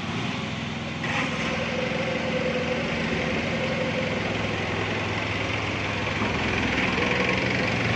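Mini crawler excavator's engine running steadily, getting a little louder about a second in.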